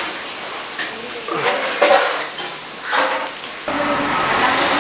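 Steady sizzle of fish frying in hot oil, with a few knocks of pans and utensils; the sound changes abruptly about three and a half seconds in.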